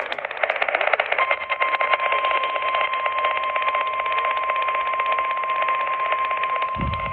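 NOAA Weather Radio's 1050 Hz warning alarm tone, one steady high tone that starts about a second in over the receiver's static hiss and crackle. It announces an incoming warning broadcast. A brief low thump near the end.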